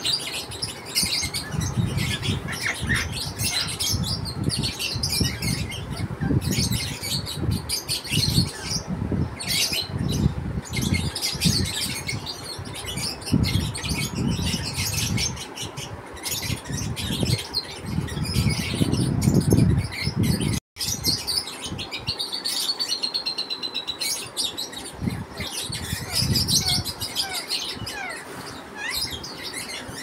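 Birds chirping and twittering, with scattered small clicks and crunches of a rose-ringed parakeet's beak biting into corn on the cob, and irregular low rumbles.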